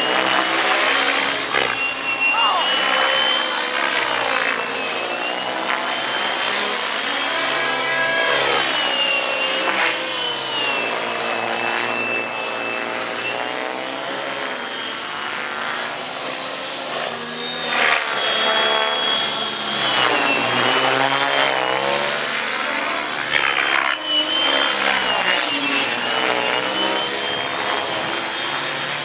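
Electric-converted Thunder Tiger Raptor 90 radio-control helicopter flying aerobatics overhead: a high motor and gear whine that rises and falls in pitch, over rotor-blade noise that swells and fades as it manoeuvres.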